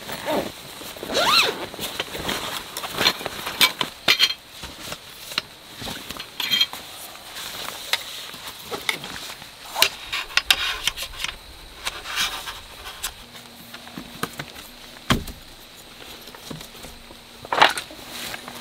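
Camping gear being handled: rustling canvas bags and a run of irregular clicks and knocks as the metal poles of a folding camp chair are fitted together. A faint steady insect trill runs underneath.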